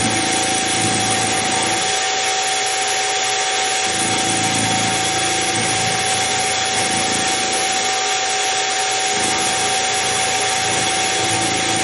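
Harbor Freight mini mill's spindle running with a steady whine while its end mill cuts a radius in a metal link that is swung by hand on a rotary table. A deeper cutting sound swells and fades several times as the work is fed against the cutter.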